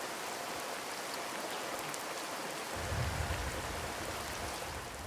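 Steady rushing water of a waterfall, a continuous even hiss. A low rumble joins it about three seconds in.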